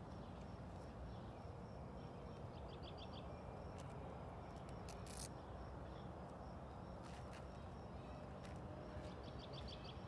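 Quiet outdoor evening ambience: a small bird gives a short rapid run of four or five high chirps about three seconds in and again near the end, over a faint steady low background noise.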